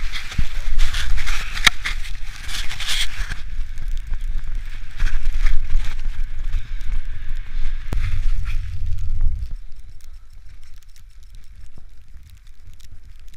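Wind buffeting a bicycle-mounted camera's microphone, with a low rumble and crackle from riding on wet road and a hiss of tyres on the wet surface early on. The rumble drops away about nine and a half seconds in, leaving quieter road noise.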